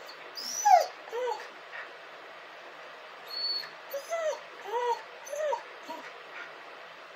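Dog whimpering: short, high-pitched whines, each rising and falling. There is one sharp, loud cry near the start and a second just after it, then a run of about five more from about three seconds in.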